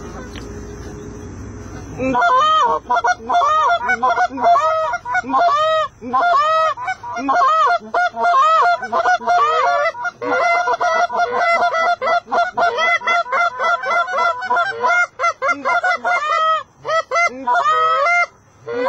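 Goose honking: a dense run of short, rapid honks and clucks, many overlapping, starting abruptly about two seconds in after a low steady rumble, and going on with only brief pauses.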